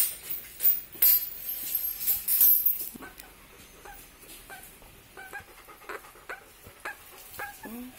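Fledgling crow giving short, squeaky begging calls, about two a second through the second half. These follow several loud rustling bursts in the first three seconds.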